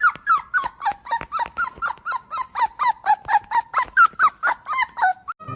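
Small dog yapping rapidly in short, high-pitched yaps, about four to five a second, without a break.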